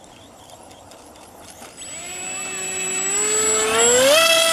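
Electric motor and propeller of a Bixler foam RC plane spinning up. A whine rises in pitch and loudness from about two seconds in and levels off at full throttle near the end.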